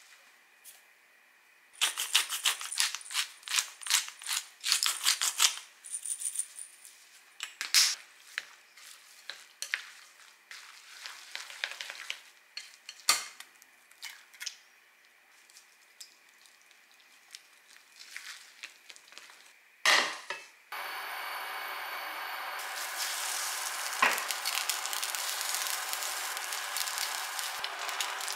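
Wooden chopsticks stirring a vegetable, glass-noodle and egg mixture in a glass bowl, clicking quickly against the glass, with an egg cracked into the bowl partway through. About three quarters of the way in, a steady sizzling of the batter patties frying in oil in a pan takes over, with a single knock of the pan or spatula.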